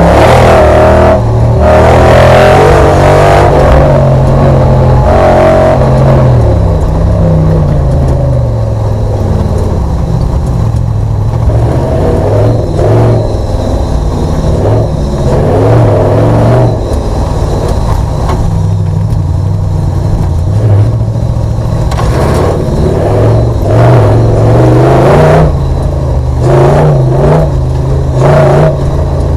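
Audi V8 engine of an off-road race special, heard from inside the cabin, running hard under load. The revs climb and drop again and again.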